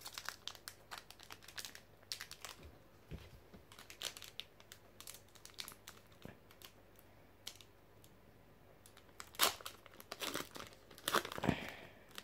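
Foil wrapper of a Pokémon trading-card booster pack crinkling as fingers pick at it and tear it open. Short crackles run throughout, with louder bursts of crinkling near the end.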